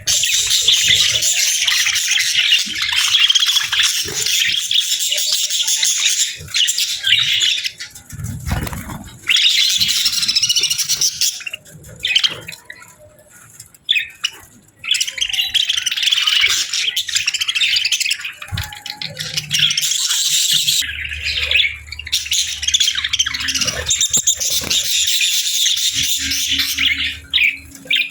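A flock of budgerigars chattering and chirping continuously, with short lulls in the middle. A low steady hum comes in about two-thirds of the way through.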